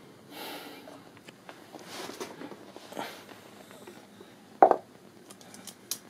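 Handling noises while measuring metal pipes with a folding ruler: soft rustling and small clicks, with one sharp knock about four and a half seconds in.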